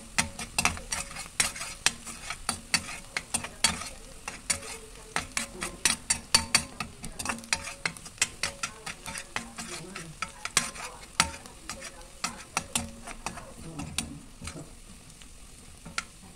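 Minced garlic sizzling in oil in a stainless steel wok, stirred with a metal spatula that scrapes and clicks against the pan many times. The clicking thins out near the end.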